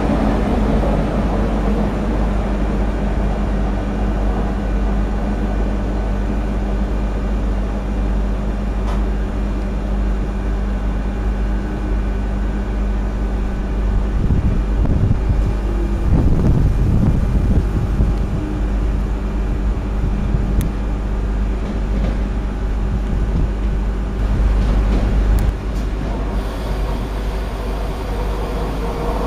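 SNCF BB 22200 electric locomotives moving slowly through the station: one rolls past close by and a second approaches. A steady hum with a deep rumble underneath.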